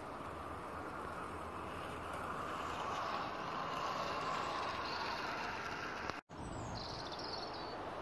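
Bachmann Class 150 model train running on garden track: a steady whirr from its motor and wheels on the rails that grows louder as it passes close by, over outdoor background noise. The sound drops out for a moment about six seconds in.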